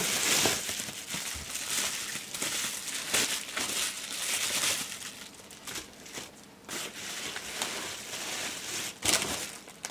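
Bubble wrap crinkling and crackling as it is pulled off a small glass bottle candle, in uneven rustles with a louder crackle about nine seconds in.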